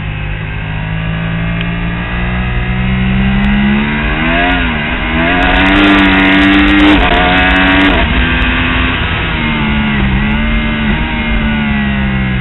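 Yamaha R1 crossplane inline-four racing engine at high revs under a moving onboard camera, its pitch dipping and climbing again several times as the rider works the throttle and gears, highest and loudest in the middle.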